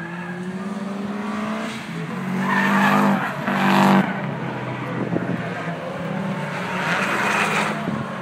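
Race car engines accelerating along the circuit, their pitch climbing over the first few seconds and loudest about three to four seconds in, with another rise near the end.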